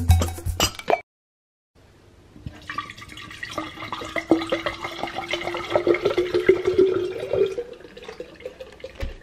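Water pouring into a glass bottle, gurgling and splashing, its pitch rising slightly as the bottle fills, then easing off near the end. A snatch of music ends about a second in, before the water starts.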